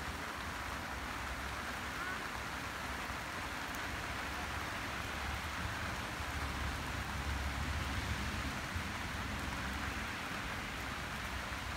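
Steady light rain falling on grass and leaves, an even hiss.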